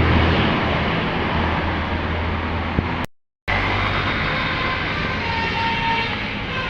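A large bus's engine running steadily with road noise as it goes by. The sound drops out completely for a moment about three seconds in. Near the end, the faint steady tones of a multi-tone telolet bus horn begin.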